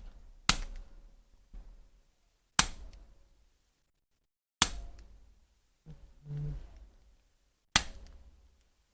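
Chiropractic adjustment: four sharp snapping clicks about two seconds apart, each dying away quickly, with a brief low voice sound between the third and fourth.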